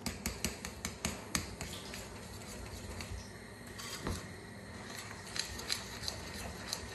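Metal spoon clicking against a white mixing bowl while stirring a thick dumpling batter of flour, milk and egg: a quick run of sharp clicks in the first second and a half, then scattered clicks.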